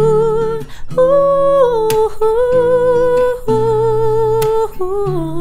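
A man's voice humming a wordless melody in long held notes with vibrato, stepping down in pitch near the end, over acoustic guitar chords.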